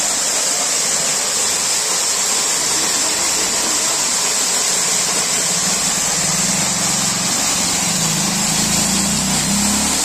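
Small waterfall splashing onto rocks and a shallow pool: a loud, steady hiss of falling water. A low engine-like hum comes in about halfway and grows louder near the end.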